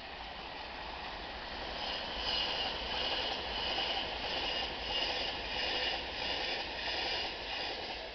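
Intermodal container wagons of a freight train rolling past on the rails with a steady rumble of wheels, and a high whine that swells and fades in a regular rhythm.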